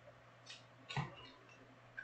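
Faint handling noises at a desk: a soft knock about a second in, with a few light clicks around it.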